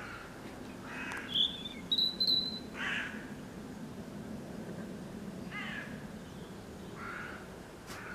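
Robin calling: short, harsh call notes a second or two apart, about four in all, with a few thin, high whistled notes in the first few seconds.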